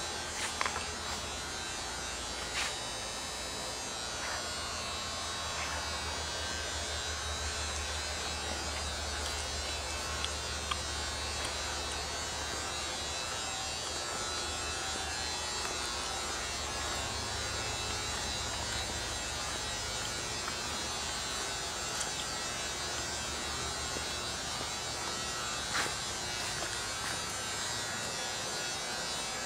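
A steady low electrical buzz and hum, with a few faint clicks.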